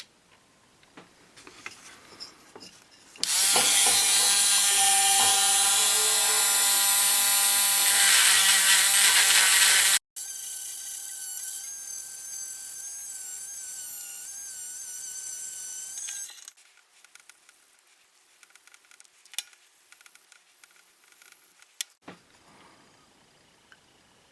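A small electric power tool runs in two stretches of about six to seven seconds each, a steady whine that wavers in pitch during the second run. Light clicks and taps come before and after.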